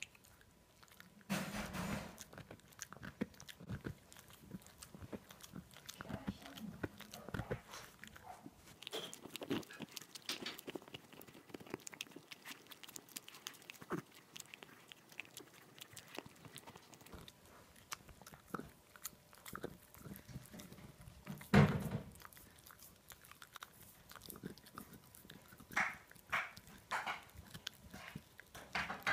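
A Boston terrier gnawing and chewing a boiled pork rib bone: many short, irregular clicking bites, with a louder sudden sound about three-quarters of the way through.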